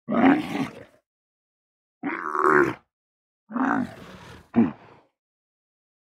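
Camel grunting: three calls of about a second each, spaced by short silences, and a short call falling in pitch right after the third.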